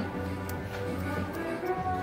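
Music playing, with long held bass notes and chords.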